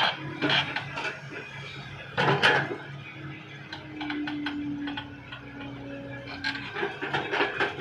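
Hitachi EX60 mini excavator working: its engine runs steadily under a series of sharp metallic clanks and knocks, with a steady tone for a few seconds in the middle.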